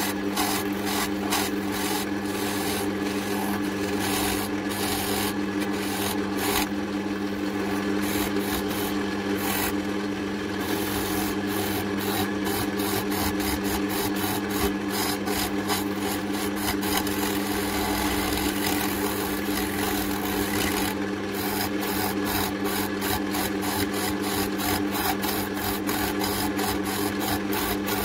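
Wood lathe running with a steady hum while a hand-held turning tool cuts into a spinning oak handle blank: a continuous rasping cut as shavings peel off, turning down the tang end of a trowel handle. The cutting thins out for a few seconds about a quarter of the way in, then grows denser again near the end.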